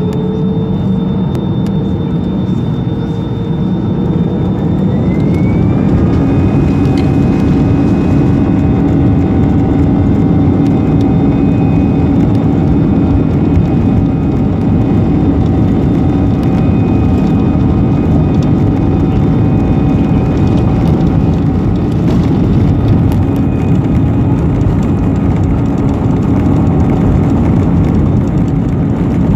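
Airliner jet engines heard from inside the cabin, spooling up with a rising whine about four to six seconds in, then running steadily at high power with a constant whine over a dense rush of noise, as when takeoff thrust is set.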